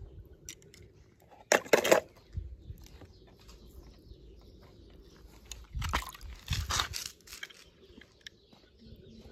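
Toy cars being handled: scattered short knocks and crunches over a low hum, in two louder clusters, one about a second and a half in and another around six seconds in.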